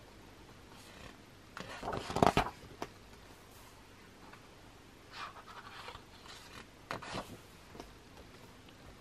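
Pages of a large glossy photobook being turned by hand: short paper rustles and flaps, the loudest about two seconds in, with softer ones between about five and seven seconds.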